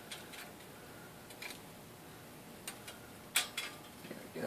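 Faint, scattered light clicks and taps of a gasket being handled and held against the front of the engine block, with one sharper click about three and a half seconds in.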